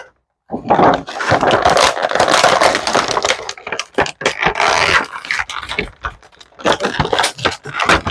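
Plastic toy packaging crinkling and rustling loudly as an action figure is worked out of its tray, with scattered sharp crackles and clicks toward the end.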